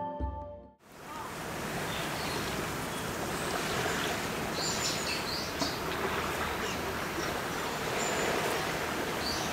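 Sea waves washing in a rocky cove, a steady rush of surf, with a few faint high chirps. Background music fades out within the first second.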